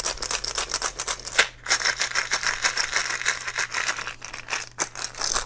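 Swaging slug cores rattling inside a small screw-cap container shaken rapidly by hand to coat them with swage lube, with a brief pause about a second and a half in.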